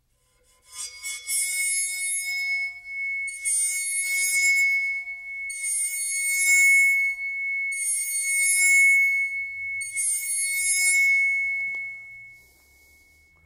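Circular steel saw blade bowed with a viola bow, singing one steady high-pitched ringing tone, set vibrating in a higher mode. Five scratchy bow strokes, about two seconds apart, keep the ring going, and it fades out after the last stroke.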